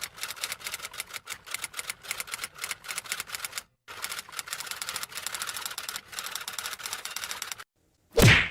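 Rapid typing clatter, keys struck many times a second, with a short break a little before halfway; near the end it stops and a single loud thump follows.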